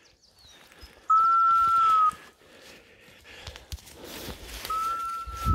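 Two long, loud blasts on a dog whistle, each a steady single note of about a second that sags slightly at the end, the second about three and a half seconds after the first. Scrub rustles underfoot near the end.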